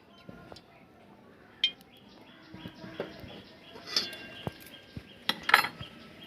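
Metal kitchen utensils clinking and knocking against a pan and bowls: scattered sharp clinks, some of which ring briefly, with the loudest cluster near the end.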